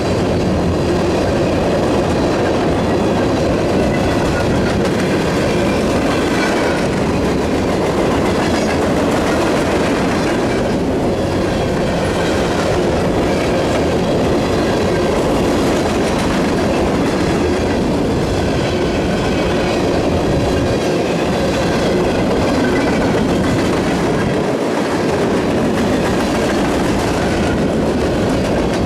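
CSX freight train's cars rolling past: a loud, steady rumble of steel wheels on rail, with faint high ringing tones over it.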